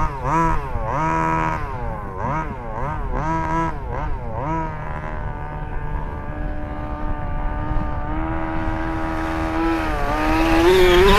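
A 1/5-scale gas RC buggy's small two-stroke engine, revving up and down in quick throttle bursts, then running at a steady pitch for a few seconds before rising sharply to its loudest near the end.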